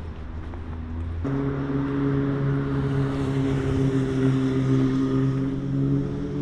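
An engine or motor running at a steady, even pitch, a low hum that starts abruptly about a second in.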